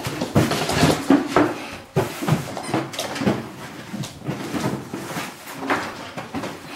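Cardboard shoebox bumping and scraping on a wooden floor as a Labrador puppy noses into it and carries it, with irregular knocks.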